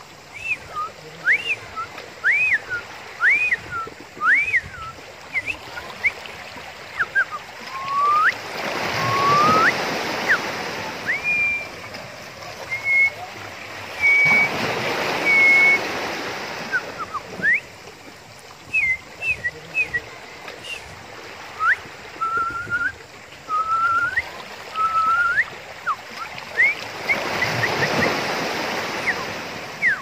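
Seawater surf washing and rushing between shore rocks, swelling three times into louder surges. Over it, many short high whistles, mostly quick rising glides, come and go the whole time.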